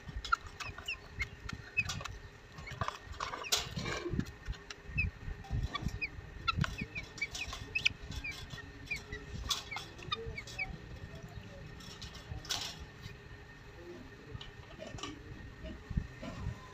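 Chickens clucking, with many short high chirps from the caged birds. Scattered clicks and knocks come from a wire cage and a plastic feed dish being handled.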